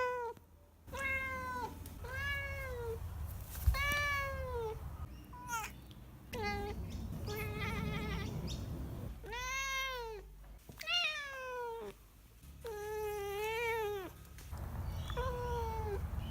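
A domestic cat meowing over and over: about ten short calls that rise and fall in pitch, with brief pauses between them, one about two-thirds of the way through longer and wavering.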